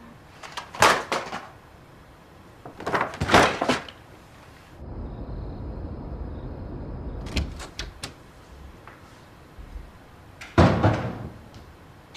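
Short rustling and knocking bursts of a paper gift bag and boxes being handled, twice in the first few seconds. Then a steady low rumble of city ambience for a couple of seconds, and one more short thud-like burst near the end.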